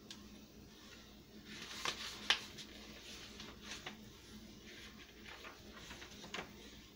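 Paper pages of a handmade junk journal being turned by hand: faint rustles and a few light flicks of paper, the sharpest about two seconds in, over a faint steady hum.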